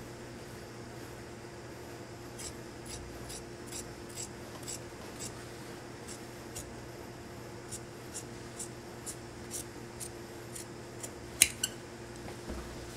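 Large tailor's shears snipping through coat fabric in a steady run of short, crisp cuts, about two a second, with two sharper clicks from the blades near the end.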